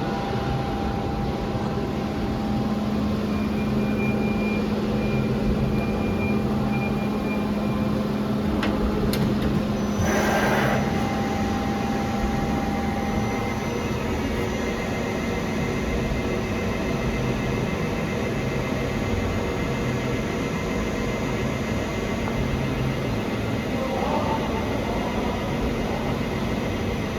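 Angelini Snupy CNC lathe running, a steady machine hum with a steady low tone. A brief hiss comes about ten seconds in.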